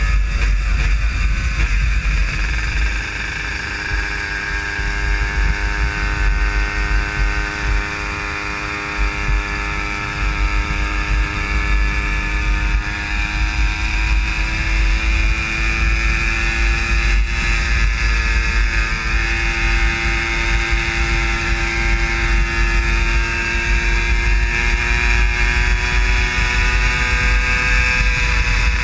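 Vehicle engine running at a steady cruising speed, its pitch drifting slowly up and down without sharp revs, under heavy wind rumble on the microphone.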